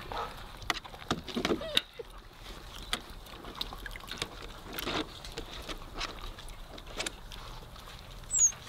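Weimaraner puppies eating from a metal food pan while standing in a shallow water-filled wading pool: scattered clicks and knocks of muzzles and paws against the metal, with water sloshing around their feet.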